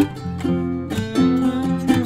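Background music on a plucked string instrument, with notes struck in a steady rhythm.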